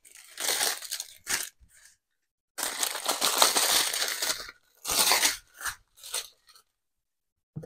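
Small plastic bags of round resin diamond-painting drills crinkling as they are handled, in irregular bursts: the longest lasts about two seconds, the others are short.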